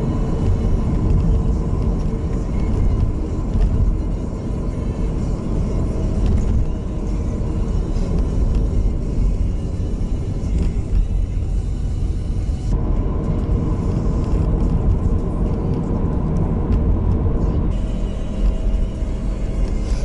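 Steady low rumble of a moving car's engine and tyres heard from inside the cabin; the higher hiss thins out for about five seconds past the middle.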